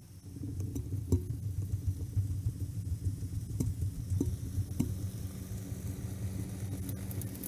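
International 745 XL tractor's diesel engine running under load while working a snowblower, a low steady rumble that grows louder soon after the start as the tractor nears, with a few sharp clicks.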